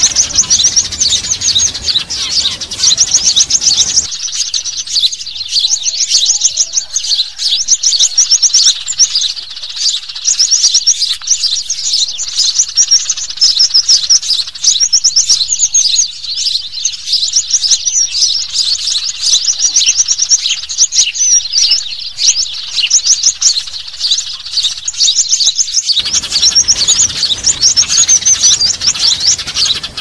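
Bird-lure recording of small songbirds twittering: a dense, unbroken stream of rapid, high chirps. A faint low background hiss under the chirping cuts out about four seconds in and returns near the end, as where recordings are spliced.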